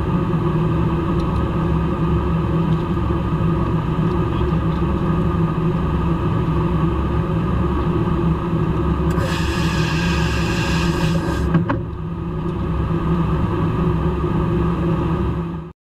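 Steady in-flight drone of a KC-135 Stratotanker, heard inside the boom operator's pod: engine and airflow noise with a low hum. A high hiss joins for a couple of seconds past the middle, then a single click, and the sound cuts off suddenly just before the end.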